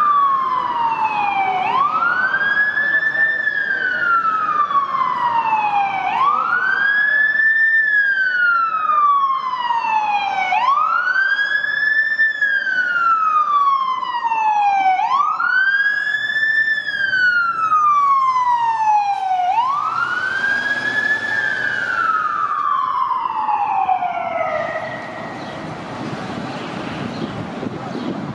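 Aerial ladder fire truck's siren wailing: each cycle rises quickly, then slides down slowly, repeating about every four and a half seconds. The wail stops a few seconds before the end, leaving the rumble of street traffic.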